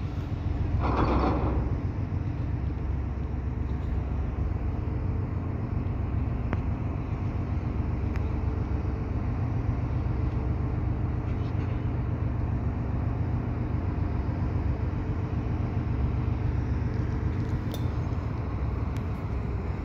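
Diesel locomotive engine idling, a steady low hum, with a brief louder noise about a second in.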